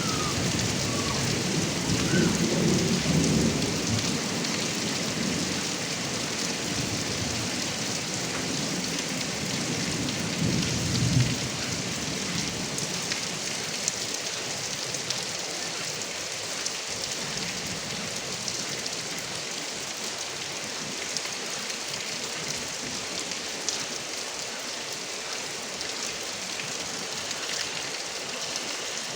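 Heavy rain pouring steadily, water splashing off a roof gutter spout. A low rumble of thunder rolls through the first ten seconds or so, then fades away.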